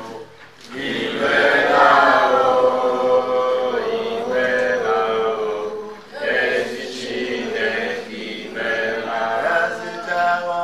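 Voices singing a chant-like song without instruments, holding long notes.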